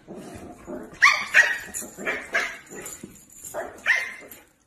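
Small puppy barking: about six short, sharp, high-pitched barks in two bunches, a quick run in the first half and two more near the end.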